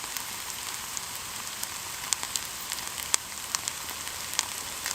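Food frying in a pan over a campfire: a steady sizzle with scattered sharp pops and crackles as it crisps.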